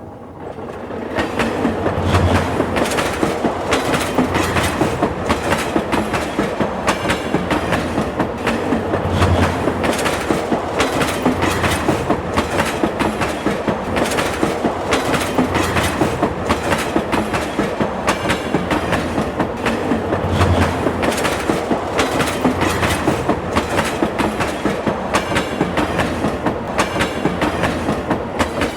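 Train passing on the rails, its wheels clicking steadily over the rail joints, about two to three clacks a second, over a continuous rumble. It swells up in the first couple of seconds and fades near the end.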